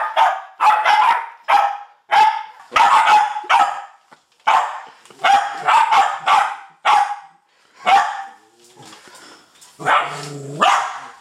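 West Highland white terriers barking: a rapid run of sharp, short barks, two to three a second, that thins out to a few scattered barks after about eight seconds.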